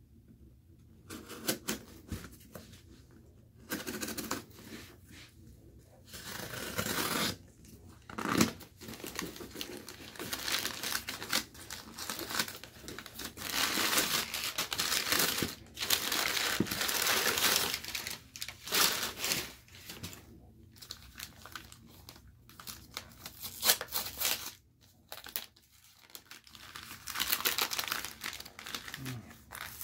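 Packing paper crumpling and rustling and cardboard being handled and torn as a shipping box is opened and emptied, in irregular bursts.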